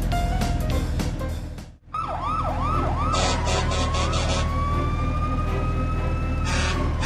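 Background music, then after a brief break about two seconds in, a siren sound effect: three quick rising-and-falling wails, then one long, slowly rising wail that drops near the end, with the music going on underneath.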